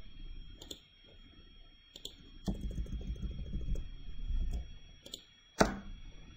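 Several computer mouse clicks, the loudest about five and a half seconds in, over a faint steady high-pitched whine, with a low rumble in the middle.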